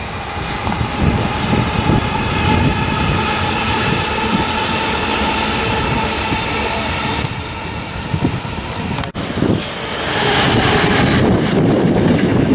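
A Sydney Trains M set (Millennium) double-deck electric train approaching and passing, its traction motors giving a steady whine of several pitches over the rumble of the wheels. About nine seconds in the sound breaks off briefly, then a double-deck train passes close by with louder rumble and wind on the microphone.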